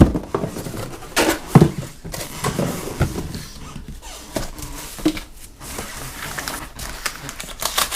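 Cardboard box and packaging being handled and pulled at: scattered knocks, scrapes and rustles, with a few sharper knocks about a second and a half and three seconds in.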